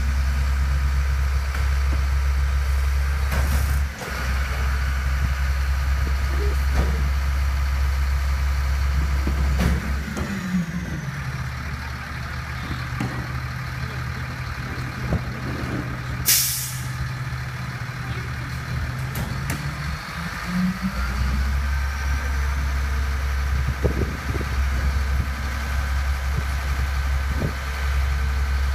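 Rear-loader garbage truck running while its hopper is loaded. The engine drone is heavy and deep for about the first ten seconds, drops to a lighter idle, then comes back up about twenty-one seconds in, with a short burst of air hiss about sixteen seconds in.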